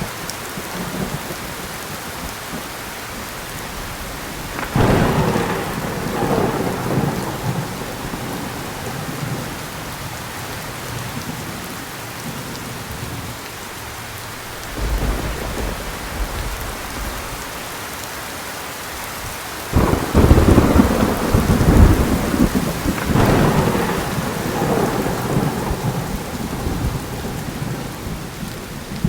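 Steady heavy rain with thunder: a sharp thunder crack about five seconds in that rumbles on for a few seconds, a low distant rumble around fifteen seconds in, and a louder crack about twenty seconds in that rolls and rumbles for several seconds.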